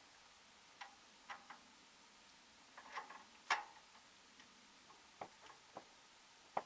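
Scattered light clicks and knocks from hands working on the mounting of a homemade dozer blade on a walk-behind tractor whose engine is off, with the loudest knock about three and a half seconds in.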